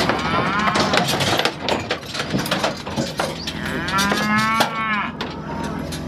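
Heifers bawling at a cattle squeeze chute: two long moos that rise and fall, the second near the end, with sharp metal knocks and clanks from the chute between them.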